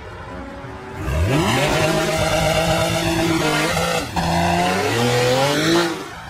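Porsche 911's flat-six engine launched at full throttle about a second in, its pitch sweeping up and holding, dipping briefly around four seconds, then climbing again before the throttle comes off near the end. The tyres squeal as the rear slides out under power.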